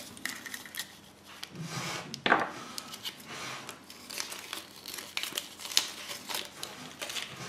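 Crinkling of a small folded paper leaflet from a Kinder Surprise egg as it is unfolded and pressed flat on a wooden table, with scattered light clicks and taps.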